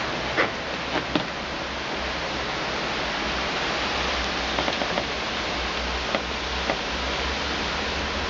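Heavy rain mixed with small hail pelting down in a thunderstorm: a steady hiss with a few scattered sharp ticks of hailstones striking.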